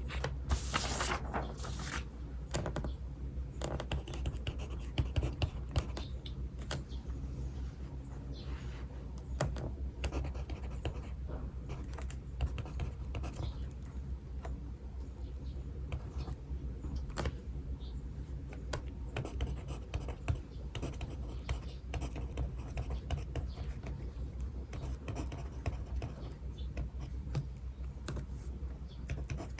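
Pen writing on paper: irregular scratching strokes and small taps on the desk throughout, over a steady low hum.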